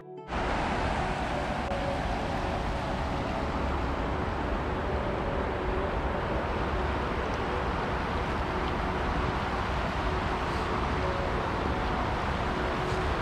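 River water rushing steadily over a low weir.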